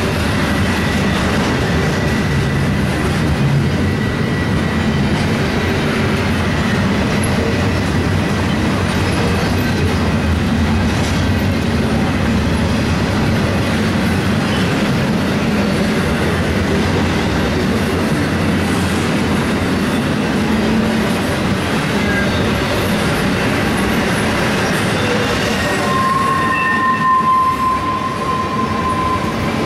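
Freight train rolling past close by, a steady loud rumble of cars on the rails that does not let up. A thin, steady wheel squeal sets in near the end.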